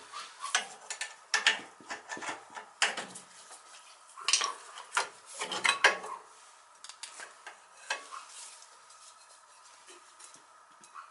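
Metal parts and hand tools clinking and scraping in irregular knocks while a part is worked into an oil burner. The knocks thin out after about eight seconds, leaving a faint steady hum.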